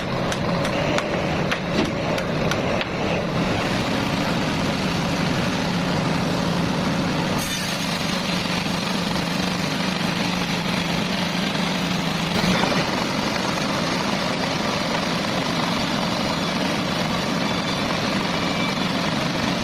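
A heavy engine running steadily under load, with a run of sharp clicks or knocks over the first few seconds.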